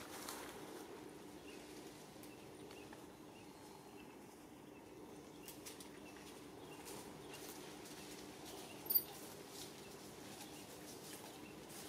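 Quiet outdoor ambience: a faint steady hum with scattered light ticks. One short, high-pitched squeak about nine seconds in.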